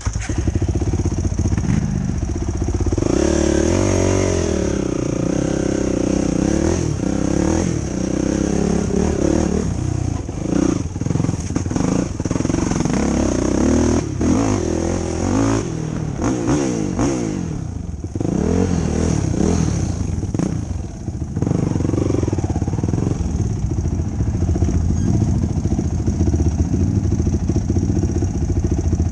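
Yamaha YFZ450 quad's single-cylinder four-stroke engine running under load while riding, its pitch rising and falling with the throttle.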